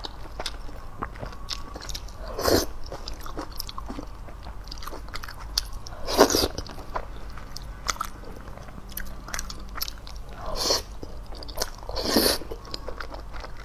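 Close-miked eating of oil noodles in chili-oil broth: four loud slurps a few seconds apart, with wet chewing and lip smacks between them.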